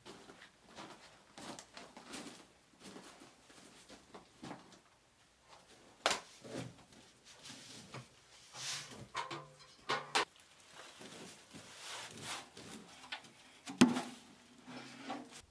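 Sand poured out of a metal bucket onto a canvas drop cloth, with rustling, scraping and bucket handling; a sharp knock comes about six seconds in and a louder one near the end.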